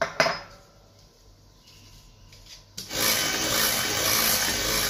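Two sharp clicks, then a little under three seconds in an electric hand mixer switches on and runs steadily, its beaters churning flour into chocolate cake batter in a glass bowl.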